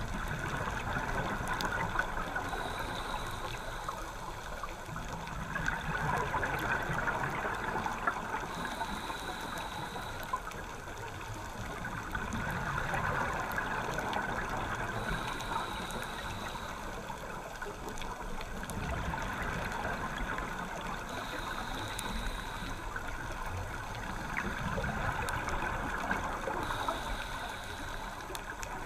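Scuba diver breathing through a regulator underwater: a short hiss on each inhale about every six seconds, followed by a longer bubbling rush of exhaled bubbles, about five breaths in all.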